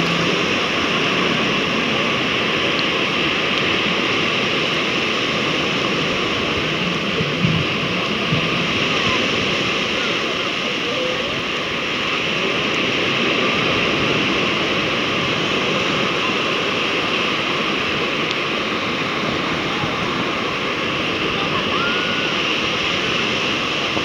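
Small sea waves washing in over a sandy beach: a steady rush of surf.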